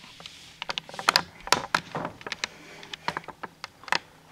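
Dry-erase marker on a whiteboard: a quick wipe of an eraser, then a run of sharp taps and short squeaky scratches as lines and shapes are drawn.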